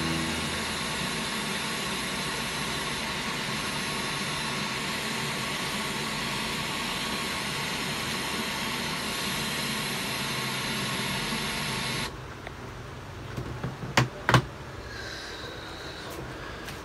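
Static hiss of white noise from a Sony KLV-32BX300 LCD TV's speakers while it is tuned to an empty channel with no signal. The hiss cuts off suddenly about twelve seconds in as the TV switches to its HDMI input. Two sharp clicks follow a couple of seconds later.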